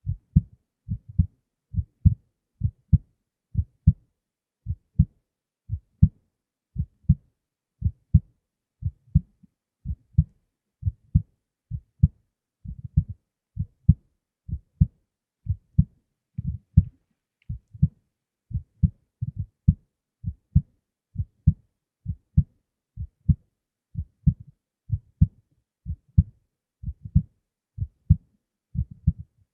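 A human heartbeat heard close up: steady paired lub-dub thumps, a little over one beat a second.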